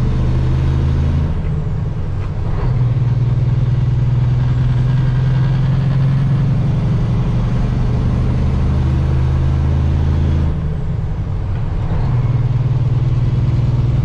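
Peterbilt semi truck's diesel engine and road noise heard from inside the cab while driving, a steady low drone. It eases off briefly twice, about a second and a half in and again about ten and a half seconds in, then picks back up.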